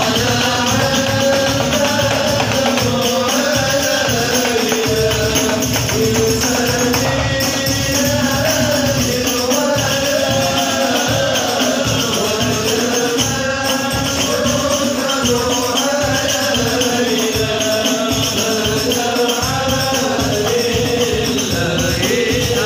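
Men's voices singing a sholawat melody in unison over hand-beaten rebana frame drums keeping a fast, steady rhythm.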